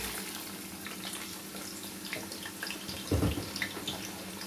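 Sliced onions sizzling as they go into a pot of hot oil: a steady hiss with scattered crackles, and a dull thump about three seconds in.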